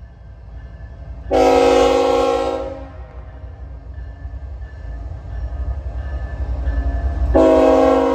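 A CN diesel freight locomotive's air horn sounds one long chord-like blast about a second in, then a second long blast near the end. Between the blasts the low rumble of the locomotive's engine and wheels builds as it draws near.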